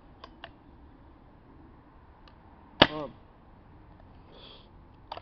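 Tippmann 98 Custom paintball marker going off while still charged with air: a couple of faint clicks, then one loud, sharp pop of compressed air about three seconds in.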